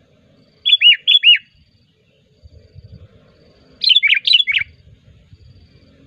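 Sooty-headed bulbul (kutilang) calling in two short bursts, each of quick whistled notes that drop in pitch: four notes about a second in, then five or six faster notes about four seconds in.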